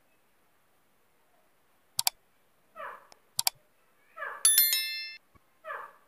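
Short calls from a caged grey francolin, three of them about a second and a half apart. Over them comes a subscribe-button animation sound: two sharp double clicks, then a louder bell-like ding near the end.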